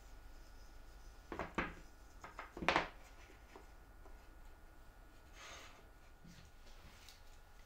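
Plywood pieces knocking together as they are set in place on a cutting mat: two light knocks about a second and a half in, then a quick cluster of sharper knocks, the loudest a little later, and a soft sliding rub of wood near the end.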